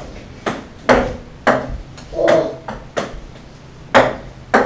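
Ping-pong ball bouncing on a wooden tabletop: a string of about six sharp, hollow taps at uneven intervals.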